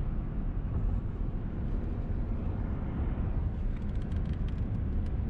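Steady low rumble of a car driving along the road, engine and tyre noise.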